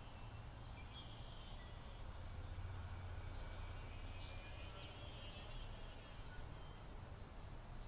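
Faint outdoor ambience: a steady low rumble of wind on the microphone, swelling a little in the middle, with a few short bird chirps about two and a half to three seconds in.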